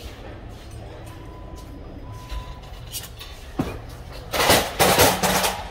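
Manual pallet jack loaded with boxes being pulled across a warehouse floor toward a truck, with a single knock about three and a half seconds in and then a loud clatter of its wheels and load for about a second near the end. A steady low hum runs underneath.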